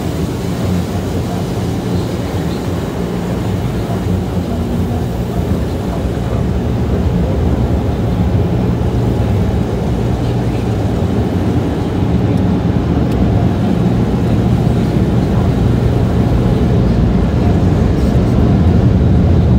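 Automatic tunnel car wash heard from inside the car: water spray hissing on the windshield and roof gives way to a steady low roar from the wash machinery and drying blowers, which grows louder toward the end.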